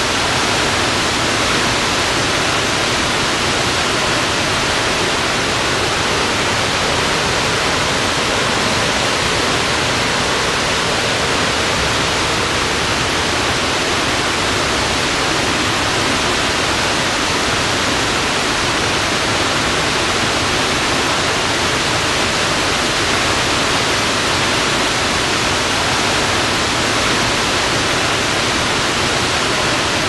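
Sahale Falls, a tall waterfall, pouring into its plunge pool: a loud, steady, unbroken rush of falling water.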